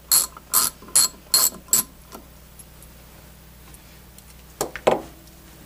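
Socket ratchet clicking in short strokes, about five clicks in the first two seconds, as it unscrews the sight glass retainer on a refrigerant charging manifold. A couple of light knocks follow near the end.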